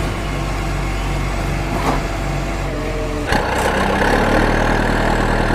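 Truck engine running steadily; about three seconds in it switches abruptly to a different engine note with a higher whine over it.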